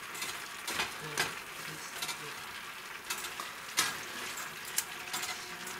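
Cabbage, potatoes and sliced sausages sizzling steadily in a frying pan as they are stirred with a plastic slotted spoon, which scrapes and clacks against the pan several times.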